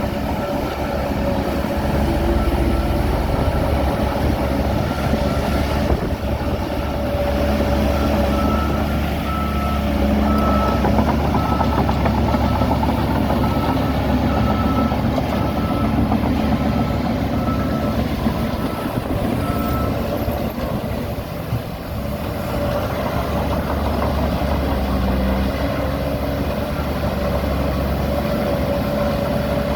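Heavy diesel machinery running steadily. A reversing alarm beeps at a regular pace for the first two-thirds or so, then stops.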